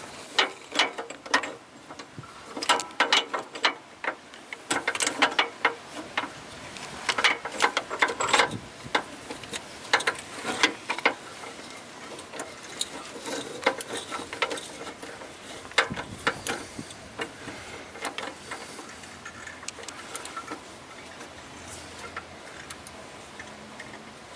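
Ratchet wrench clicking in short runs of quick strokes, dense at first and sparser later, as a 27 mm socket on a knuckle and extension bar tightens the new engine oil pressure sensor into the engine.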